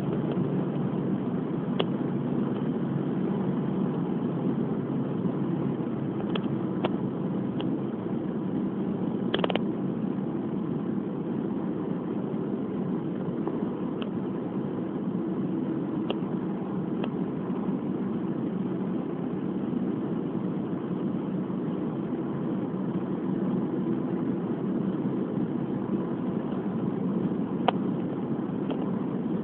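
Steady engine and tyre noise of a car cruising on an expressway, with a few faint clicks.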